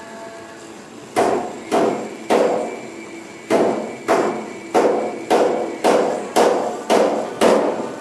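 Eleven sharp, evenly paced strikes on metal, like hammer blows, starting about a second in and then coming a little under a second apart, each ringing briefly. A steady hiss from the lit oxyacetylene torch heating the body lead runs underneath.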